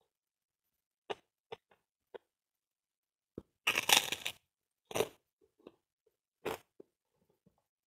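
Biting into and crunching a crisp white kerupuk cracker: a dense burst of crunches about four seconds in, with scattered single sharp cracks before and after.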